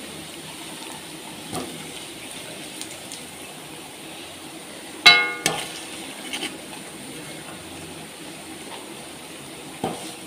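Beef pieces frying in hot oil in a steel pan, a steady sizzle, while a metal spoon scoops them out. About five seconds in the spoon strikes the pan with a sharp ringing clink, followed by a second, and there are a few lighter knocks.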